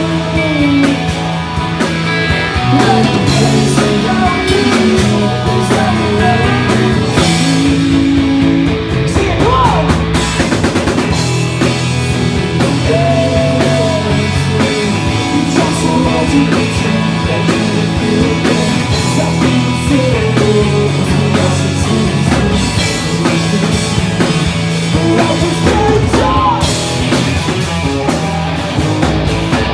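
Live pop-punk band playing a song: singing over distorted electric guitars, bass and a drum kit.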